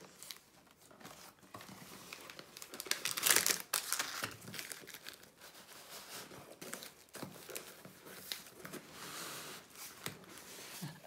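Plastic packets and cardboard rustling and scraping as they are worked out of a tightly packed cardboard box, in irregular bursts, the loudest about three seconds in.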